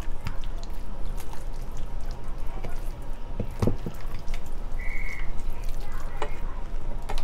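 Hands rubbing barbecue sauce into a raw whole chicken, making irregular wet smacks and clicks. A brief high tone sounds about five seconds in.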